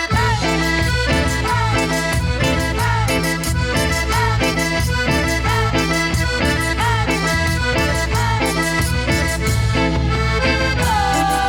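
Cumbia band playing an instrumental passage: a short bending melodic figure repeats over bass and a steady beat, and one long note is held near the end.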